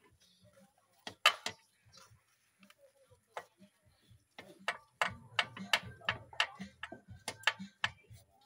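Sharp metallic clicks and clinks of a hand tool, likely a ratchet wrench, working the exhaust mounting bolts of a motor scooter. The clicks are sparse at first and come quickly and irregularly from about halfway through, with a low rumble underneath.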